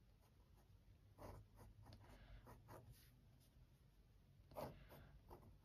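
Faint scratching of a fine-nibbed transparent fountain pen drawing a series of short strokes on sketchbook paper, the loudest stroke a little after four and a half seconds in. The nib is a little scratchy.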